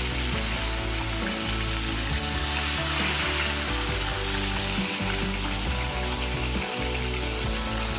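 Battered chicken lollipops deep-frying in hot oil in a wok: a steady sizzle as the finished pieces are scooped out with a wire spider strainer.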